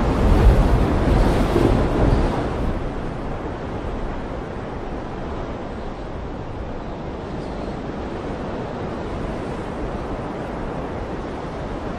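Wind rushing over the microphone and sea water churning in the narrow gap between two ships' hulls. It is heavy and buffeting for the first two or three seconds, then settles to an even rush.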